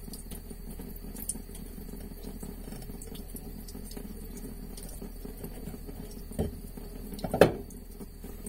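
Kitchen knife scraping and slicing along a kisu (Japanese whiting) fillet on a wooden cutting board as the belly bones are shaved off, in small scratchy ticks over a thin stream of tap water running onto the board. Near the end come two knocks, the second and louder as the knife is set down on the board.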